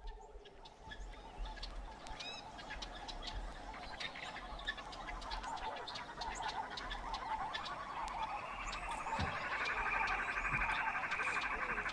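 Birds chirping over a frog chorus that grows steadily louder; from about eight seconds in a dense, pulsing chorus of croaking frogs dominates.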